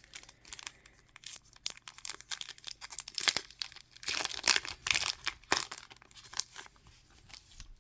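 A small sticker-pack wrapper being torn open and crinkled by hand: irregular crackling and sharp rips, loudest in the middle.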